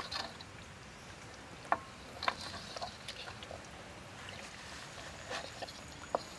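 Wet, sticky squelching of hands kneading and turning a whole duck coated in a wet marinade in a wok, with a few sharp clicks, the loudest about two seconds in and near the end.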